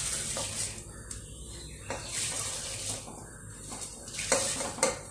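Soaked, coarsely ground wheat being pushed by hand off a steel plate into a pressure cooker of warm water, in three bursts of rustling and splashing. There are two sharp knocks near the end.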